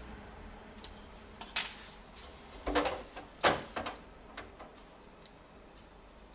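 Small hand tools handled on a workbench: metal tweezers set down and a soldering iron picked up, giving a few sharp clicks and clatters, the loudest about halfway through.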